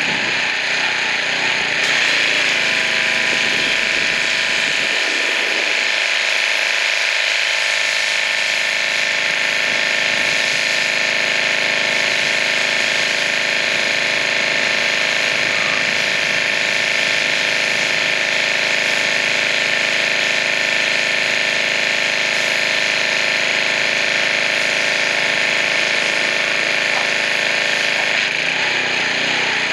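Pressure washer running steadily and spraying a hard jet of water, a constant motor-and-pump drone under a strong hiss.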